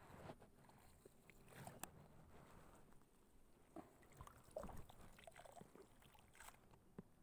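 Near silence: faint handling clicks and small water sounds as a red fishing lure is swished in shallow, weedy water.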